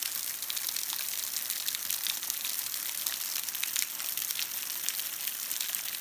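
Trickle of a waterfall dripping and falling in thin streams onto wet slate rocks: a steady splashing hiss dotted with many tiny drop ticks.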